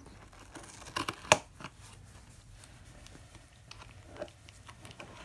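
Scissors snipping through packing tape on a cardboard box, with crackles and knocks from the box being handled; the sharpest click comes about a second in.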